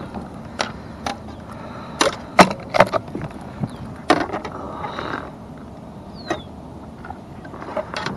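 Irregular sharp knocks and clatter on a plastic kayak hull while a landed bass and gear are handled aboard, with a cluster of the loudest knocks about two to three seconds in and another about four seconds in.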